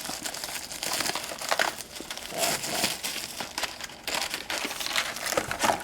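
Plastic and foil packaging crinkling and crumpling as it is handled, a steady run of irregular crackles.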